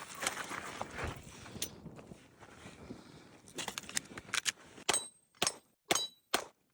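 Rustling movement noise with a few sharp clicks, then, in the last couple of seconds, four sharp airsoft gun shots about half a second apart, each with a brief metallic ring.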